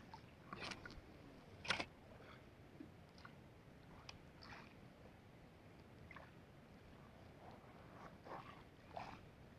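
Near silence with a few faint scattered clicks; the sharpest comes about two seconds in.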